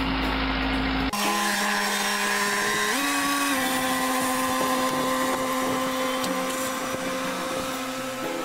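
A compact diesel tractor engine running for about the first second. Then, after a cut, a car engine idles with a steady whine whose pitch steps up about three seconds in.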